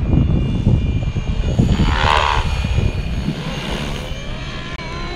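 Fly Wing FW450 V2 RC helicopter, powered by a 3S LiPo, flying: a steady electric motor and rotor whine with a buzzing blade chop that swells about two seconds in as it passes closer, over a constant low rumble.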